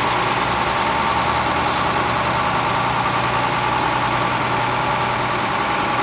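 Diesel engine of a 1983 Peterbilt 348 concrete-pump truck running steadily at low speed as the truck creeps forward.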